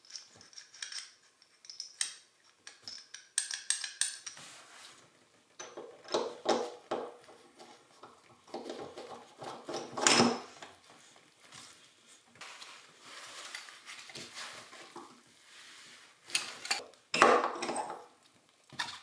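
Tub drain parts and tools being handled in a bathtub: irregular clinks, knocks and scrapes, loudest about ten seconds in and again near the end.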